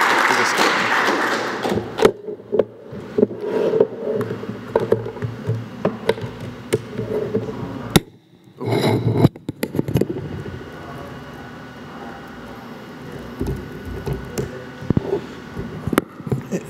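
Audience applause dies away over the first two seconds. It is followed by scattered clicks, knocks and scraping as a laptop and presentation clicker are handled at a podium microphone.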